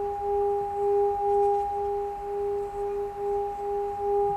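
Singing bowl sounding a sustained, steady ring with a higher overtone above it; the lower tone wavers in a pulsing beat about four times a second.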